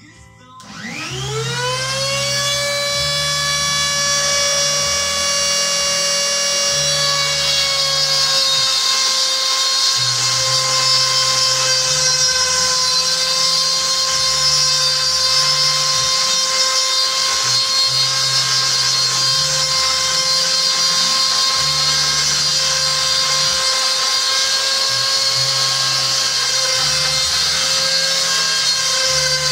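Rotary tool in a drill stand switched on, spinning up over about two seconds to a steady high-pitched whine that holds with a slight dip in pitch about eight seconds in.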